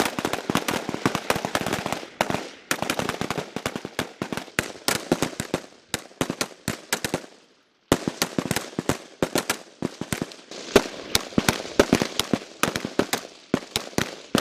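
Volleys of rapid, overlapping rifle shots from several FAMAS 5.56 mm bullpup assault rifles firing at once, dozens of sharp cracks echoing, with a short break a little over halfway through before the firing resumes.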